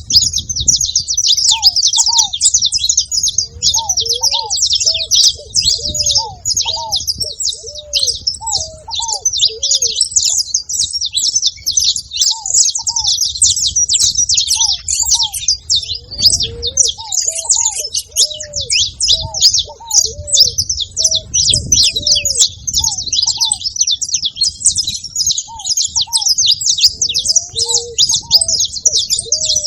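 Saffron finch singing in a rapid, unbroken stream of high chirps. A lower, short arched note repeats in groups throughout.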